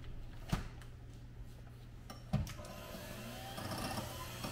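Electric mixer running in a bowl of heavy whipping cream, with two sharp knocks about half a second and two and a half seconds in, and the mixer growing louder near the end. The cream is over-whipped and is turning to butter.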